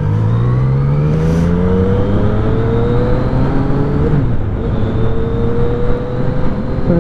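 2015 Yamaha FZ-09's inline-three engine pulling away and accelerating, its pitch climbing, then dipping briefly about four seconds in at an upshift and climbing again.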